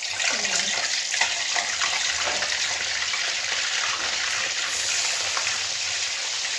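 Paneer frying in hot oil in a kadhai: a steady sizzle with small crackles.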